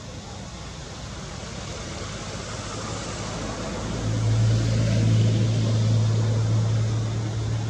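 A motor vehicle going past: engine and road noise build up steadily, with a low engine hum loudest from about four seconds in, then begin to fade near the end.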